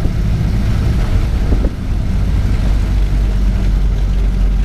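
A 1931 Ford Model A's four-cylinder engine running, a steady loud low rumble with no marked change in speed.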